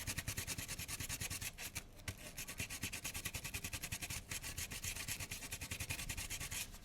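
Glass-fibre eraser pen scrubbing back and forth on the dirty metal frog of a Märklin M-track turnout: a fast, even scratching, with a short break about two seconds in, as the grime is rubbed off the contact surface.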